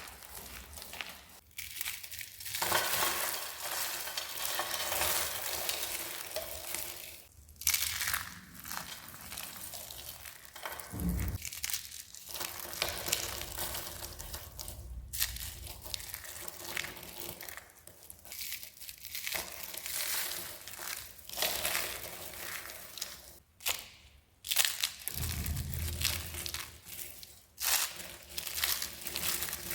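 Dry, crispy soap being crushed and crumbled by hand, a dense crackling crunch in stretches of a few seconds with short pauses between them, and a few soft low thumps.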